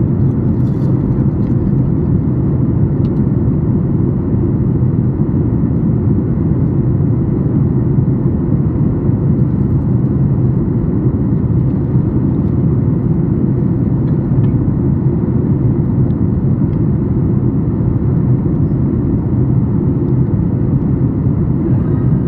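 Steady cabin noise inside a Boeing 737-8 MAX in flight: a low rumble of airflow and its CFM LEAP-1B engines, with a faint steady hum over it.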